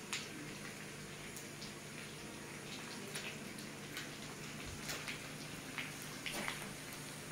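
Faint steady hiss of meat and potatoes cooking in a wok over a gas flame, over a low steady hum, with a handful of light clicks of a spoon as salt is spooned into the pan.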